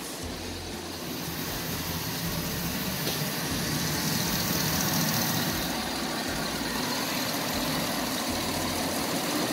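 2009 Chevy Silverado 1500's V8 engine idling steadily, first run after a head gasket replacement and running smoothly. It gets gradually louder over the first few seconds as the open engine bay comes nearer.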